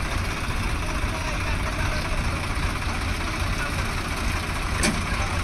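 Diesel engines of Swaraj tractors and a JCB backhoe loader running steadily at idle, with one sharp click near the end.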